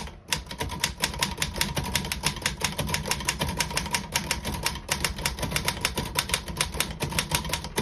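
1933 Royal 10 manual desktop typewriter being typed on: a quick, even run of key strikes, several a second, that stops near the end.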